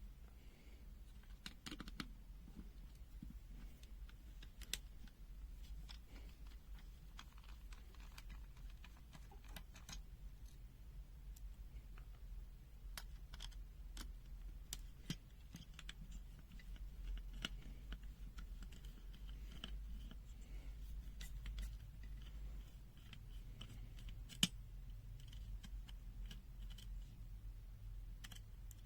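Faint scattered clicks and light scraping from a small plastic multimeter case and its parts being handled and opened by hand, over a low steady hum. One click about 24 seconds in stands out louder than the rest.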